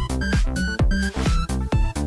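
Electronic dance music with a steady kick-drum beat, about three to four beats a second, and short synth notes.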